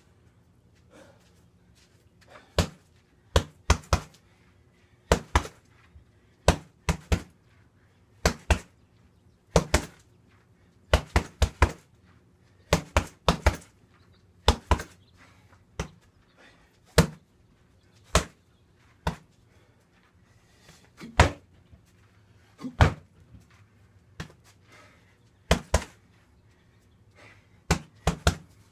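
Strikes landing on a free-standing heavy bag: sharp smacks, some single and some in quick combinations of two or three, every second or two with short pauses between.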